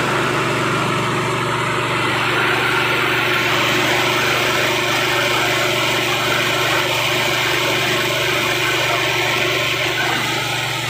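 KD 500 WG mini rice mill running steadily while milling rice, a constant machine hum with a rushing noise on top.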